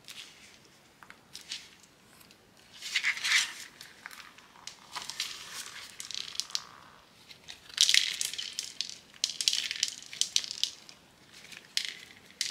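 Hands squeezing and kneading slime with soft clay topping pieces pressed into it, the slime sounding in irregular bursts that are loudest about three seconds in and again near eight seconds.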